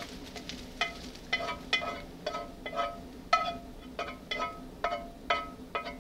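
A frying pan knocked repeatedly as bacon and mushrooms are scraped out of it with a spatula into a wire-mesh sieve. It makes an irregular run of sharp knocks, two or three a second, each ringing briefly.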